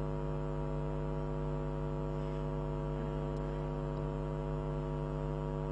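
Steady electrical mains hum: an unchanging low buzz with a stack of evenly spaced overtones.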